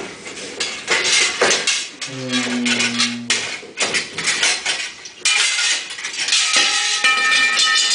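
Live experimental sound performance imitating harbour buoys: metallic clanking and rattling, a low held horn-like tone for about a second and a half about two seconds in, and from about five seconds in a cluster of bright ringing metallic tones that keeps sounding.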